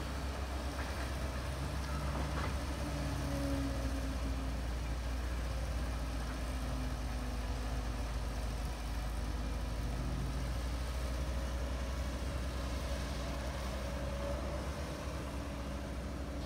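Caterpillar hydraulic excavator's diesel engine running steadily while the machine swings and raises its boom. Faint tones above the low engine sound shift up and down in pitch now and then as the hydraulics work.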